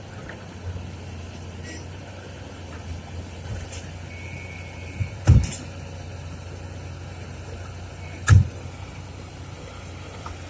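Heavy-equipment diesel engine running steadily at a low hum, with two loud sharp knocks about three seconds apart.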